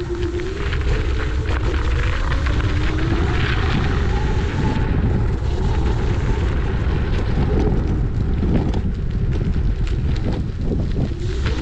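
Wind buffeting a GoPro Hero 8's microphone while riding a Dualtron electric scooter: a steady, loud rumble, with a faint wavering hum in the first couple of seconds.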